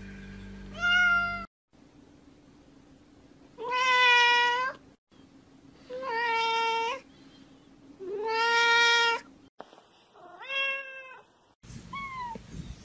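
House cats meowing, one after another: five drawn-out meows about a second each, with a faint short falling call near the end.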